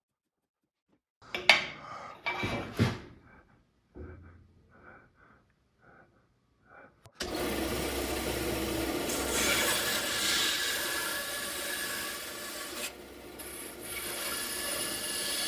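Pencil scratching on a wooden board in a run of short strokes, then, about seven seconds in, a bandsaw starts cutting a dovetail into a softwood post with a steady sawing sound that dips briefly near the end.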